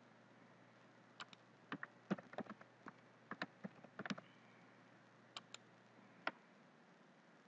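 Computer keyboard keys typed in an irregular run of quick clicks, then three more separate clicks near the end.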